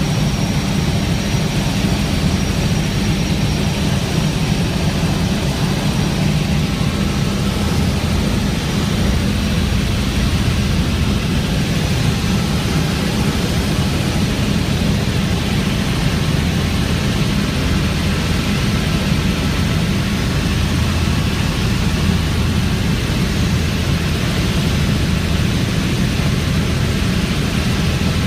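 Helicopter in flight, heard from inside the cabin: a loud, steady drone of engine and rotor with a deep rumble and a constant hiss.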